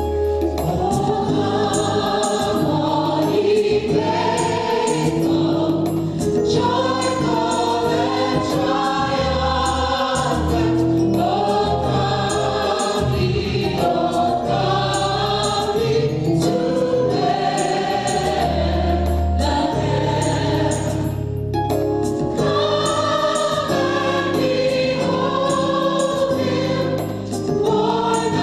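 Gospel choir singing with instrumental accompaniment and a sustained bass line.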